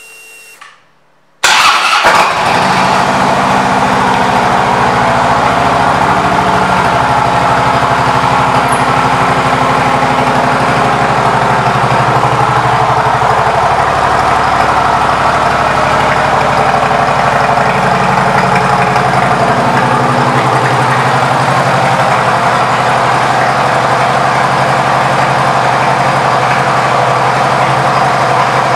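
2012 Harley-Davidson touring bike's V-twin engine, fitted with an aftermarket exhaust, starting up about a second and a half in and then idling steadily and loudly.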